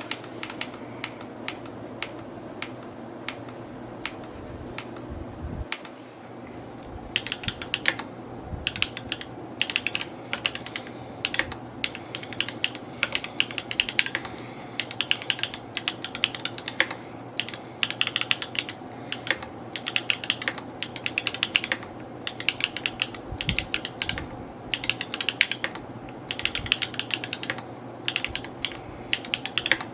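Typing on an S&R Magnus175 mechanical keyboard: a continuous run of keystroke clacks, sparser for the first several seconds, then quicker and denser.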